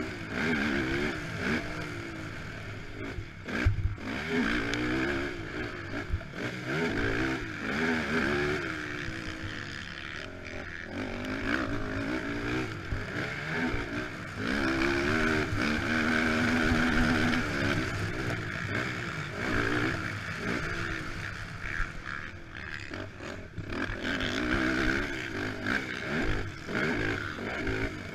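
Honda TRX450R quad's single-cylinder four-stroke engine revving up and falling back again and again as it is raced hard, with wind noise on the rider-mounted microphone. A sharp thump about four seconds in.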